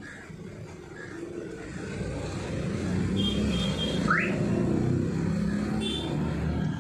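A motor vehicle engine running, growing louder over the first couple of seconds and then holding steady. There is a short rising squeak about four seconds in.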